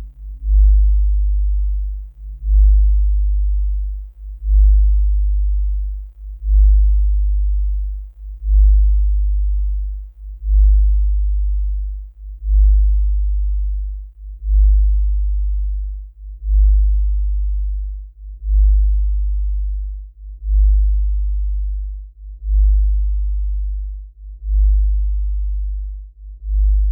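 A very deep tone that swells and fades in slow, even pulses about every two seconds. Two higher steady tones die away in the first couple of seconds.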